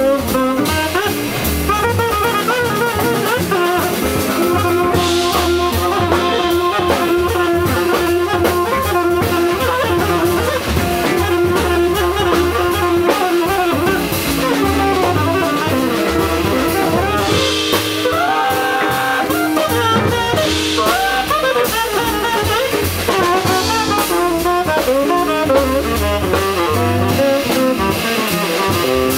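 Jazz quintet playing live, with the tenor saxophone carrying the melody over the drum kit.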